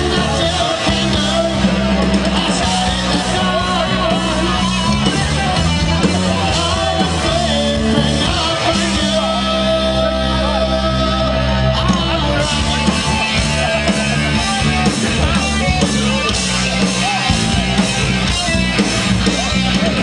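Live rock band playing loud, with a singer shouting over distorted guitars, bass and drums.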